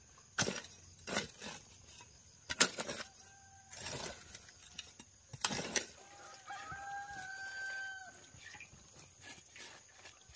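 A rooster crowing once, a single held call about two-thirds of the way in. Several sharp knocks come before it, the loudest near the start.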